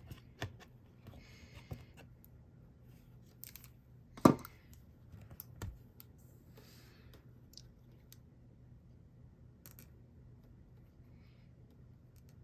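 Small clicks, taps and paper rustles from craft supplies handled on a desk while a layer is glued, with one much louder knock about four seconds in.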